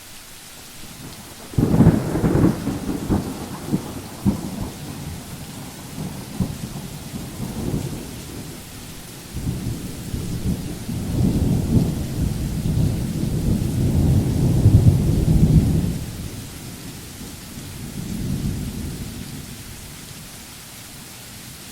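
Thunder over steady rain: a sudden crack about a second and a half in that breaks into rolling rumbles, then a second long rumble building and fading away, and a softer rumble near the end.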